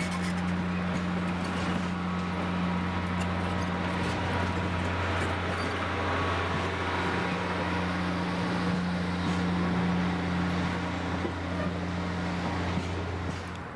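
Railroad locomotive running steadily: an even, low hum with a hiss over it, cutting off suddenly near the end.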